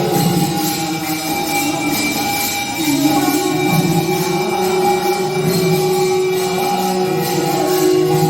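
Music with singing over steady jingling percussion, in the manner of a devotional chant.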